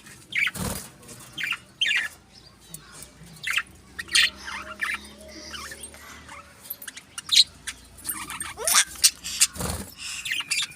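Budgerigars and finches chirping and twittering in many short, irregular calls. There is a dull knock about a second in and another near the end.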